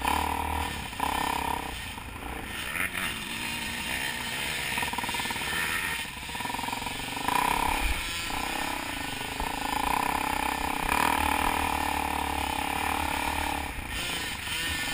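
Dirt bike engine running close to the microphone, its pitch rising and falling repeatedly as the rider accelerates and backs off along a rough trail.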